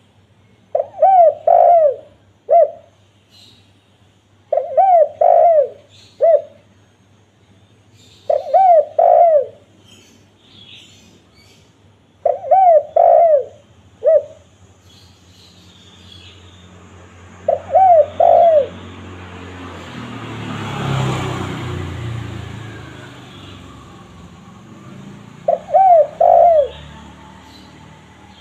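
Spotted dove (tekukur) cooing: a short phrase of two or three low, bending coos repeated every few seconds, six phrases in all. Faint small-bird chirps come in between, and a rushing noise swells and fades about two thirds of the way through.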